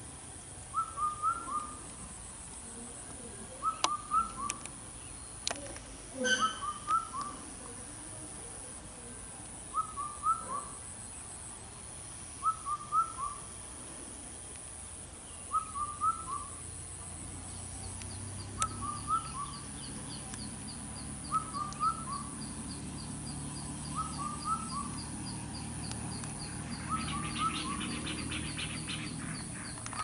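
A bird calling over and over: a short phrase of three or four quick rising notes, repeated about every three seconds. A low steady hum and faint high ticking come in during the second half.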